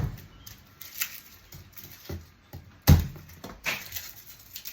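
Knocks on a kitchen surface as a garlic bulb is struck to break it apart: one firm thump about three seconds in, with lighter knocks before and after it.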